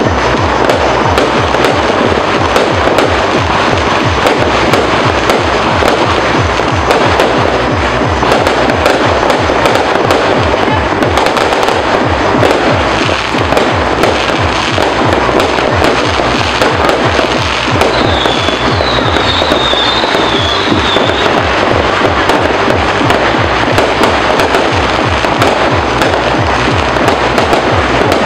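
Fireworks and firecrackers going off in a dense, continuous barrage of loud crackles and bangs, with no break.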